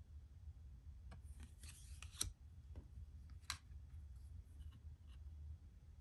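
Faint handling of a deck of Lenormand cards as the front card is slid off and moved to the back. There is a soft rasp of card sliding on card about one and a half seconds in, ending in a sharp click, then a second click about a second later.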